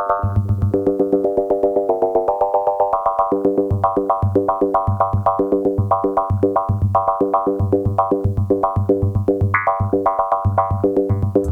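Arturia MiniFreak synthesizer playing a fast sequenced pattern of short, plucky pitched notes over a pulsing bass note and light percussive clicks, in a steady rhythm.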